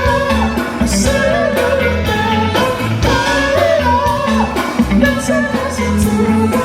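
Pop-style music with a singer's voice carrying a melody over a steady bass line and drums.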